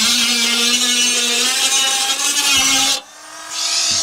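Cordless rotary tool (Bosch) grinding the edge of a freshly cut hole in the van's sheet-metal front wing, its motor running at a steady whine with a harsh grinding hiss. About three seconds in it drops off for a moment, then runs up again at a higher pitch.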